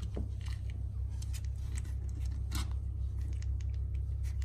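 Small clicks and rustles of a three-and-a-half-week-old Cavapoo puppy squirming in a hand on fleece bedding, over a steady low hum.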